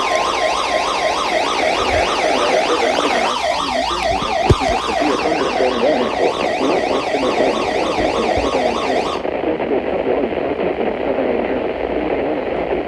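Electronic siren-type alert sound yelping rapidly up and down, several sweeps a second, over a weather-radio warning broadcast. A steady alert tone sounds beneath it at the start. About nine seconds in, the sound turns duller, as its high end cuts off.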